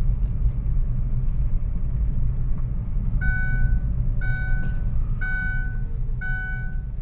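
Steady low rumble of a running vehicle. From about three seconds in, an electronic warning beep sounds about once a second.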